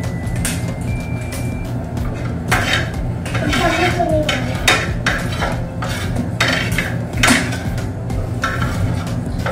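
Metal spoons and forks clinking and scraping against plates and serving trays during a meal: a string of irregular sharp clinks over a steady low hum.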